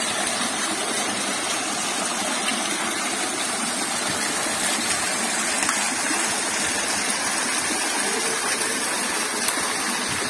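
Waterfall splashing steadily down rock into a shallow pool, a continuous even rush of falling water.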